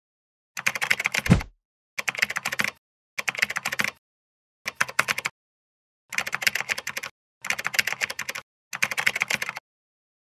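Computer keyboard typing: seven short bursts of rapid key clicks with pauses between them. A low tone drops steeply about a second in.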